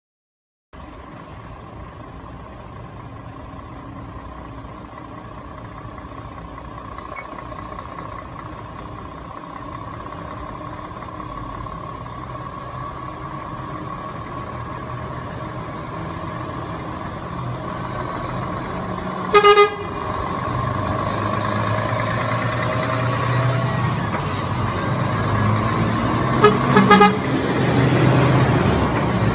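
Diesel engines of heavy Scania and Volvo tractor units running as the trucks pull out and approach, growing steadily louder. A truck horn gives one short blast about two-thirds of the way through, and two quick toots near the end.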